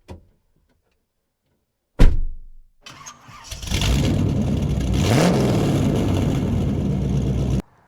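A loud single thump, then a car engine starting and running loudly with a brief rev, cut off abruptly near the end.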